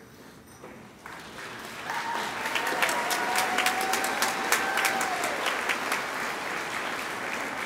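Audience applauding, swelling up about a second in and easing toward the end, with a long held cheering call from someone in the crowd over it.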